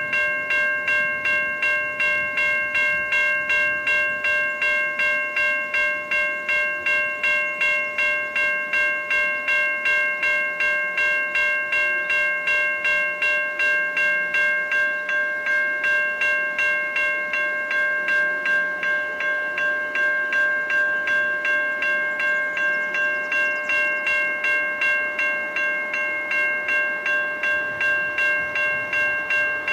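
Railway level crossing bell ringing with rapid, evenly spaced strokes, warning that a train is approaching.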